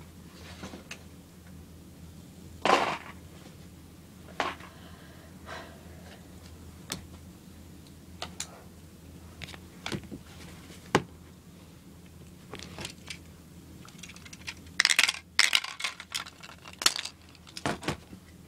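Hard plastic toy parts handled and set down on a plastic bin lid: scattered clicks and knocks, with a quick flurry of clatter near the end.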